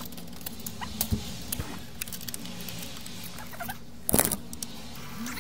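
Plastic clicks, knocks and short squeaks from the disc tray and loading mechanism of a 1988 Magnavox CDB582 CD player being handled and lifted out. There is a sharper knock about four seconds in.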